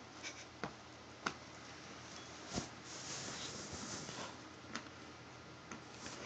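Guinea pigs shifting about in dry hay: faint rustling, louder for a second or so about halfway through, with a handful of scattered soft clicks.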